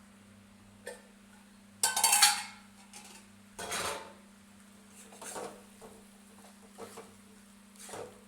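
Metal pots and utensils clattering: about six separate clanks and scrapes, the loudest about two seconds in with a brief ring. A steady low hum runs underneath.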